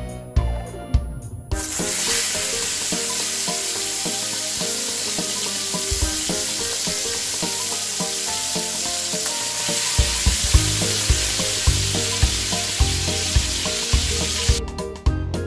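Marinated chicken breasts sizzling in hot oil in a nonstick frying pan, the sizzle starting suddenly about a second and a half in and cutting off abruptly near the end. Background music plays throughout.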